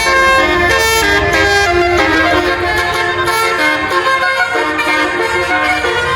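A tour bus's Basuri musical air horn (a 'telolet' horn) playing a melody of quickly changing notes, with a low rumble underneath that fades after about four seconds.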